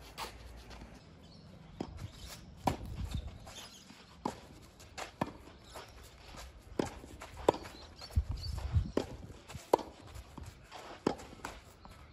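Tennis rally on a clay court: about ten sharp pops of the ball coming off racket strings and bouncing on the clay, spaced under a second apart, with shoes shuffling and scraping on the clay between strokes.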